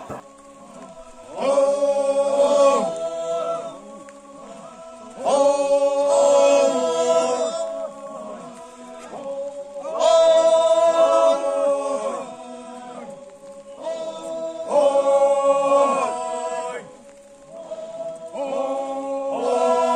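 A group of Angami Naga men chanting together as they walk in procession: a sung phrase of about two seconds, repeated about every four to five seconds with short pauses between.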